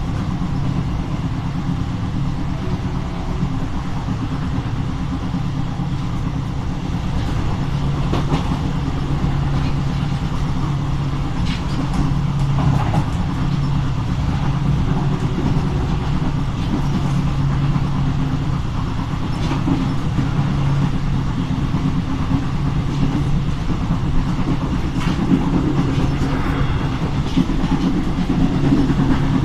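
Train running at speed: a steady low drone with a hum of fixed tones, and scattered clicks and knocks from the wheels over the track.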